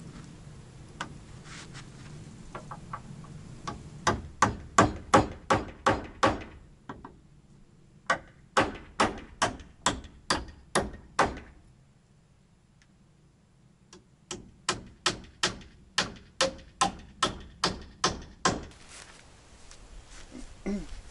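Hammer driving nails into timber: three runs of quick, even blows, about three a second, with short pauses between the runs.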